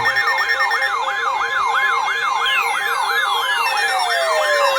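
Electronic alert siren: a rapid yelp of rising sweeps, about three a second, over steady alarm tones. About halfway through, a long falling wail sweeps down over them. It sounds ahead of a tropical storm warning alert.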